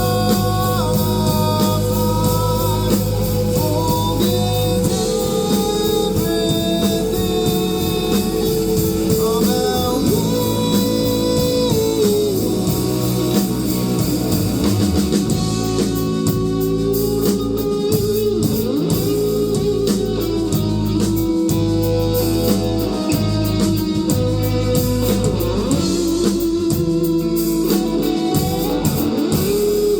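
Live rock band playing: electric guitar lines over bass and drums, with the drumming growing busier about halfway through.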